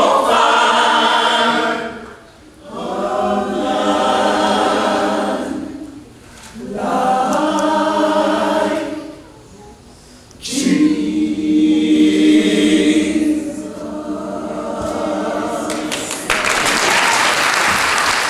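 Gospel choir singing in sustained phrases with short breaks, ending on a long held chord; applause breaks out near the end.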